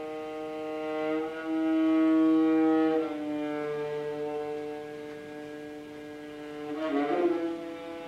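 Bowed strings, a violin among them, playing slow, long-held notes of contemporary chamber music, several pitches sounding together. The held chord shifts pitch a few times and swells louder after about a second and a half, then swells again with a short sliding flourish near the end.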